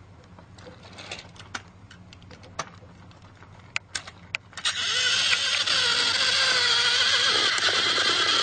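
Battery-powered toy train's motor switched on about four and a half seconds in, then running with a loud, steady whirring of its gears; before it, a few light clicks of plastic toy parts being handled.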